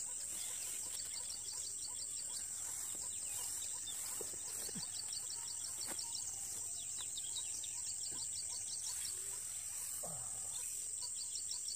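Outdoor insect chorus: a steady high-pitched buzz, with rapid high chirping over it that pauses about nine seconds in and then resumes. A few faint soft knocks.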